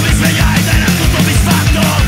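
Hardcore punk song played at full tilt: fast, driving drums under distorted electric guitars and bass.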